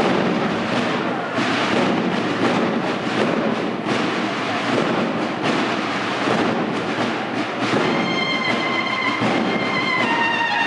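A brass-and-drum band playing: the drums beat a dense rhythm, and about eight seconds in the brass comes in with long held notes that move to a new pitch shortly before the end.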